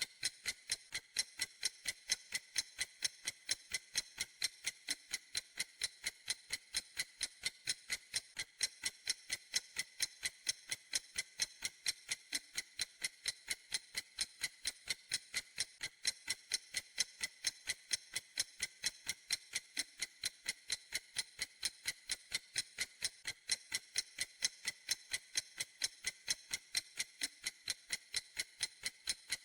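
Clock ticking in a steady, even rhythm, several sharp, high-pitched ticks a second.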